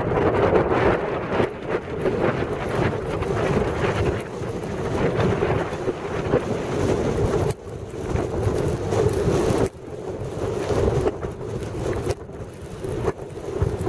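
Strong gusting wind buffeting the microphone: a loud, rumbling rush of noise that drops out briefly twice near the middle.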